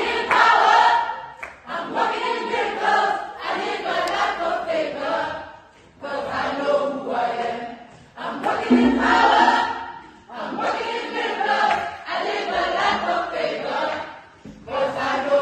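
A mixed choir of men and women singing together in phrases, with a few short breaks between them.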